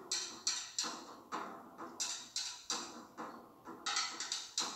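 Tahitian drum music: a fast, uneven pattern of sharp wooden drum strikes, each dying away quickly.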